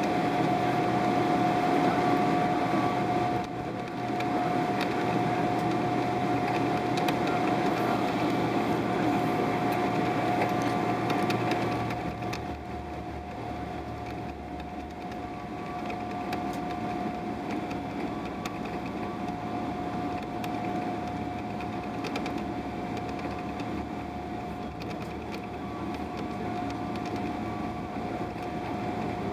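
Steady airliner cabin noise inside a Boeing 777-300ER, the rush of the engines and air conditioning with a constant mid-pitched whine. It drops in level about twelve seconds in.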